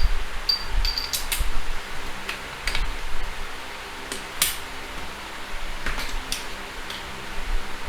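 Metal hand tools clinking and knocking together as they are handled, a string of irregular sharp clicks, with a faint steady hum underneath.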